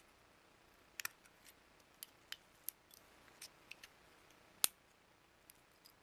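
Diagonal cutters snipping and cracking apart the plastic housing of a network adapter's antenna: a scattered series of sharp clicks and snaps starting about a second in, the loudest a little past the middle.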